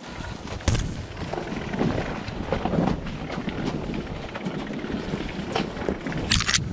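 Wind buffeting the microphone over a rumble and scattered knocks from a dirt bike moving along a rough trail, with a short hiss near the end.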